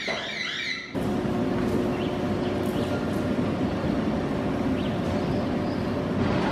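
Aerial cable car cabin gliding into its station, with the haul machinery giving a steady rumble and a faint hum. The sound comes in suddenly about a second in.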